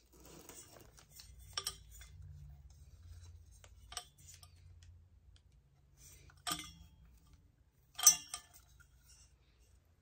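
Handling noises as ceiling fan parts and their packaging are picked up and moved: four sharp clicks and knocks a couple of seconds apart, the fourth the loudest, over a faint low hum.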